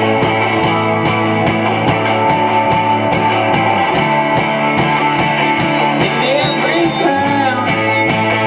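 Roots-rock band playing an instrumental passage live: guitars held over a steady beat.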